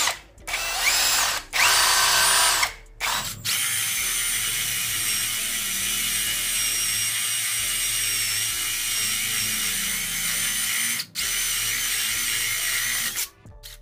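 Cazar CZ-21VD brushless cordless drill boring a 25 mm spade bit through 1.5-inch-thick teak. It runs in a few short bursts, then one long steady run with a high whine, stops briefly about eleven seconds in and starts again. The footage is played at double speed.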